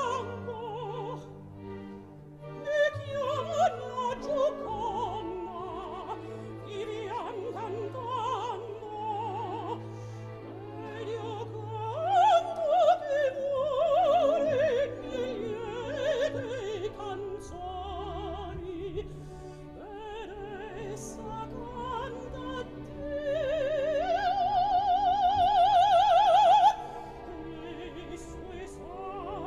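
Operatic soprano singing an Italian phrase with wide vibrato over an orchestra. Near the end she swells into a loud, long held high note that breaks off suddenly.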